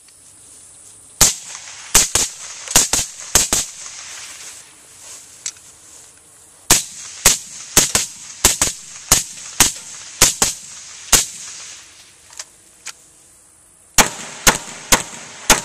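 Firearm shots fired in three quick strings of sharp cracks: about seven, then about a dozen after a short pause, then a few more near the end.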